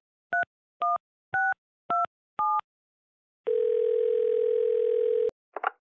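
Touch-tone telephone dialing: a quick run of two-note key beeps, about two a second, as a number is keyed in. After a short pause comes one ringback tone, a steady slightly warbling hum about two seconds long, cut off by a click as the call is picked up.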